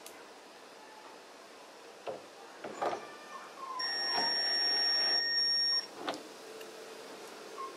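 Cordless drill-driver turning a screw in the plastic air-intake grille, a steady high whir for about two seconds that stops abruptly. A few clicks of handling the tool come before it and one after.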